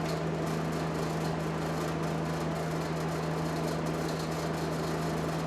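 Steady low machine hum with an even hiss behind it, unchanging throughout.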